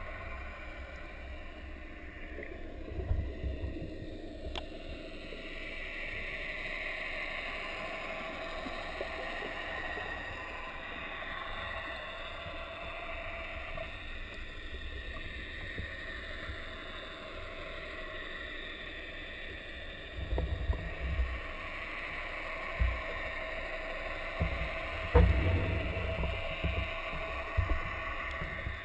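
Muffled underwater ambience picked up by a camera submerged in a school of herring: a steady wash of water noise, with low thumps and bumps a few seconds in and again several times through the last third.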